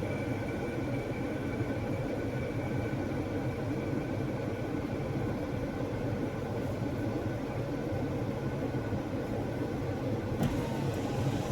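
2022 Jeep Grand Cherokee idling with its air conditioning running: a steady, even mechanical hum, with a short click near the end.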